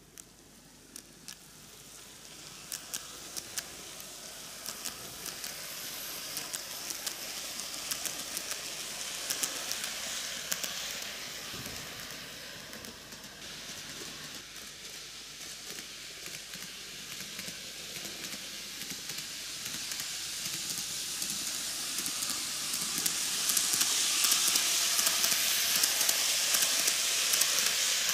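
N-gauge model train (TOMIX Kintetsu 80000 series Hinotori) running on its track: a steady whirring hiss with many small clicks from the wheels on the rails. It fades as the train runs off round the loop and grows louder again as it comes back, loudest near the end as it passes close by.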